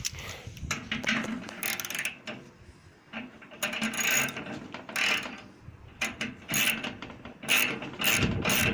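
Ratchet wrench clicking in short, irregular runs as a Loctite-coated spider arm bolt is turned into the washing machine drum's spider arm.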